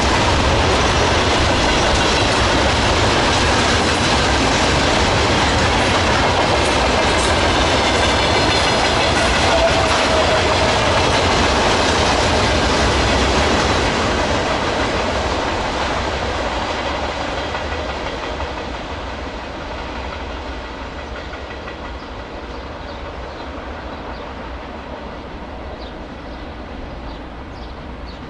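Freight train wagons rolling past on the rails with a clickety-clack of wheels over the rail joints and a deep rumble. The sound stays loud until about halfway through, then fades steadily as the train moves away.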